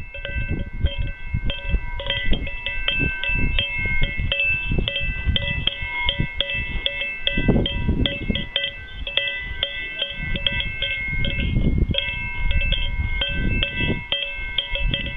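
Many metal livestock bells clanking irregularly and continuously, their ringing held at a few fixed pitches, over a low rumbling underneath, like a flock of bell-wearing animals on the move.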